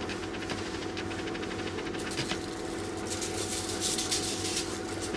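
Dried chopped garlic shaken from a spice jar onto sweet potato wedges on aluminium foil: a light, rapid rattling patter of granules, busiest from about three to four and a half seconds in, over a steady low hum.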